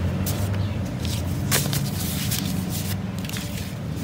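Paper banknotes and clear plastic binder envelopes rustling and crinkling as they are handled, with a few short sharp crinkles, the clearest about a second and a half in.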